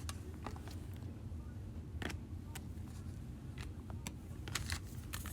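Faint, scattered light clicks and taps from cards and plastic holders being handled on a table, over a low steady hum.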